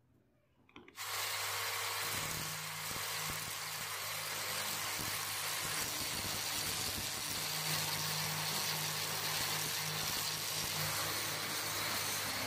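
Angle grinder with a roughing disc grinding down weld spots on a steel hammer head, a steady, loud grinding that starts suddenly about a second in.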